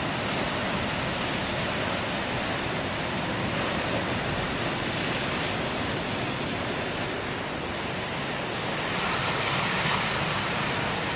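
Big waves breaking and washing onto the shore: a steady, dense rush of surf that swells a little about five seconds in and again near the end.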